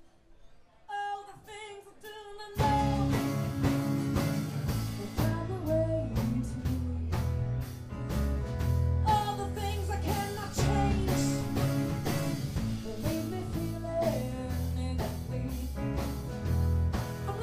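Live band: a few picked guitar notes, then about two and a half seconds in the full band comes in at once, with electric bass, electric and acoustic guitars, and a woman singing lead.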